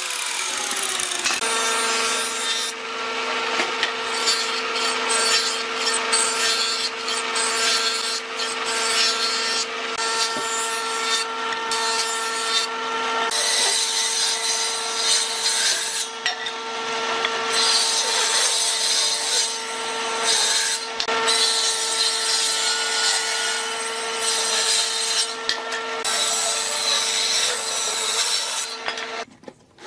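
An electric power tool working pine: its motor runs at a steady pitch while the wood gives off a rough, hissing noise that breaks off briefly several times. The tool starts about a second and a half in and stops just before the end.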